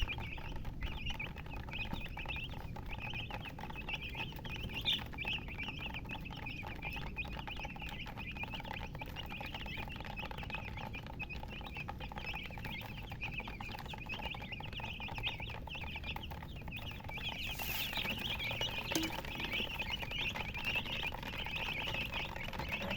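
Chicks peeping continuously, many high chirps overlapping.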